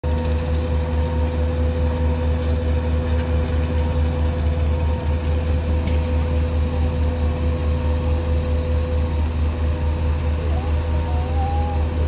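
Jackhammer breaking pavement with an even, regular pulsing, over the steady hum of a construction excavator's engine.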